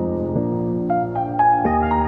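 Gentle instrumental background music: held keyboard chords that change every second or so, with a short line of single notes climbing over them.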